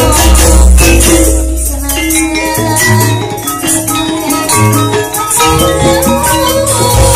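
Javanese gamelan ensemble playing loudly during a sound check of a new thick-metal set: metallophone keys struck hard in steady stepped notes over deep sustained low notes, with a rattling cymbal-like shimmer of rapid strokes on top.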